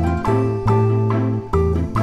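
Light instrumental background music, with a new note about every half second over a held bass line.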